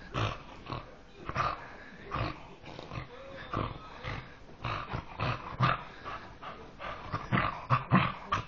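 Petit Basset Griffon Vendéen making pig-like grunting play noises while mouthing a hand, in short irregular bursts about two a second.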